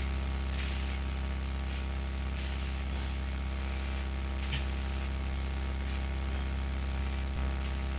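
A steady low hum, with a few faint, brief hissy sounds over it.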